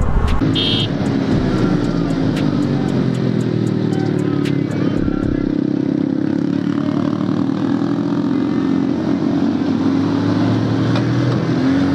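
Motorcycle engine running under way at fairly steady revs, its pitch easing down a little over the first few seconds and then holding, over a steady rushing noise. A short high beep sounds about half a second in.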